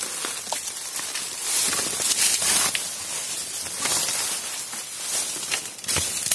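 Footsteps crunching through dry bamboo leaf litter, with bamboo stems and leaves rustling and brushing past and scattered sharp snaps and clicks of twigs.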